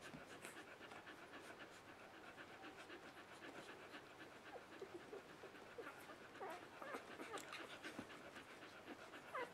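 Australian Shepherd mother dog panting in a fast, even rhythm, faintly. From about halfway on, her three-day-old puppies give small squeaks and grunts while nursing, with a rising squeal near the end.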